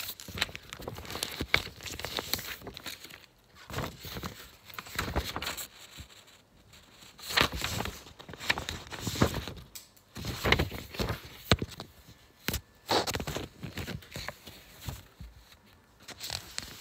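Irregular rustling and crinkling, broken by many small knocks and taps, in uneven bursts.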